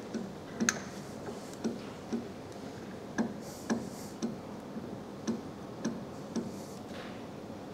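Light, regular clicking, about two clicks a second, from the feed handle of a NORDBERG NL3 disc brake lathe being turned to move the cutting tools to the start of the brake disc.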